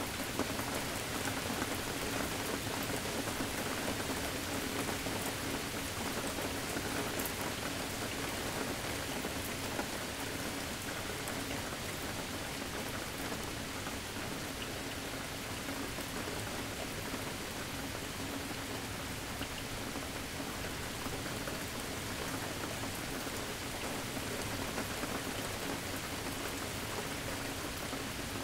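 Steady rain falling, an even hiss with a few sharper drop ticks; no distinct thunder clap.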